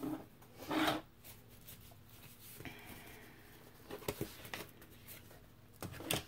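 Thin cereal box cardboard being handled and slid by hand, with light rubbing and rustling and a few sharp clicks and taps.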